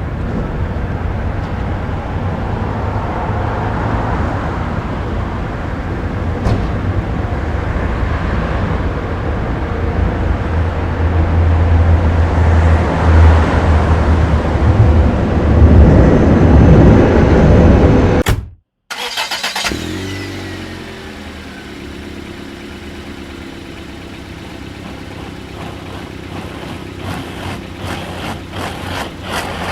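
Driving noise inside a Honda Ridgeline pickup's cabin: a heavy low rumble of road and engine noise that grows louder over the first two-thirds. The sound cuts out for a moment, then returns as a quieter, steady engine hum that builds again near the end.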